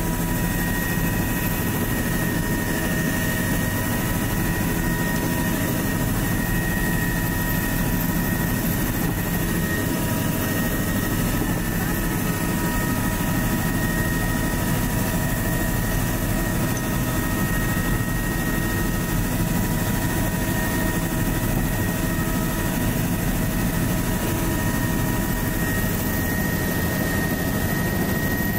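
Helicopter in flight heard from inside the open cabin with its doors off: a steady drone of rotor and engine with wind rush, and several steady whining tones over it.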